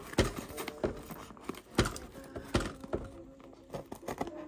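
A wrapped parcel being handled and opened on a table: about five sharp knocks and thunks, spaced irregularly.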